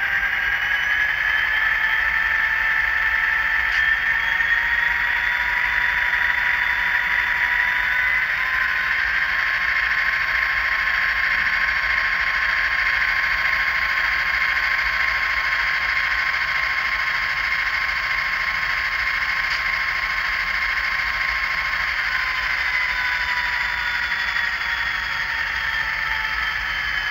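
HO-scale EMD GP35 model's onboard sound system playing its diesel prime mover revving up through its throttle stages with the brake set, heard through the model's small speaker. The engine note climbs in steps over the first eight seconds or so, holds high, then winds back down near the end.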